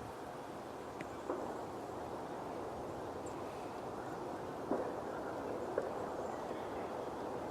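Steady outdoor background noise with a few soft knocks and a single brief, faint, high bird chirp about three seconds in.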